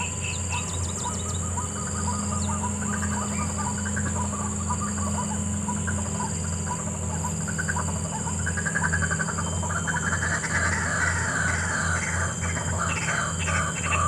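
White-breasted waterhens (wak-wak birds) calling: a chorus of rapid, repeated calls that builds and grows louder about eight seconds in. Early on another bird gives a steady series of short notes, about two a second.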